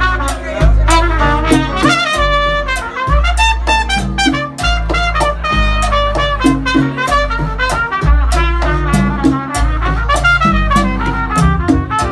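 Live Latin jazz band: a trumpet plays a moving melodic line over deep bass notes and steady, evenly spaced percussion strikes.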